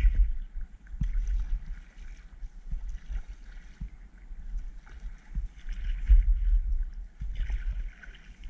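Kayak paddle strokes in the water: irregular splashing and dripping as the blades dip and lift, loudest at the very start and again from about six seconds in. A gusty low rumble sits underneath.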